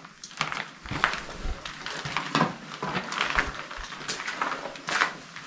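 A series of irregular light clicks and knocks, several a second and uneven in strength.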